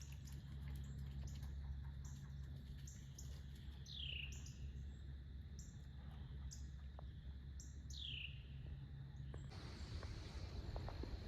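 Wild birds calling: a short downward-slurred whistle repeated about every four seconds over a steady series of quick high chirps. Both stop abruptly near the end.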